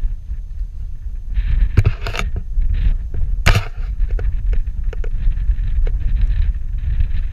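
Wind rumbling on the microphone of a camera riding on a walking camel's saddle, with sharp knocks and clicks from the saddle and mount, the loudest about two and three and a half seconds in.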